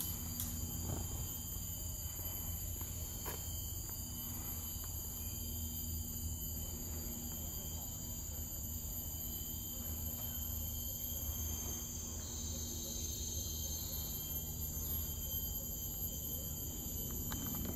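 Steady high-pitched insect chorus of a tropical forest: several continuous shrill tones layered together, with no break. Underneath runs a steady low rumble.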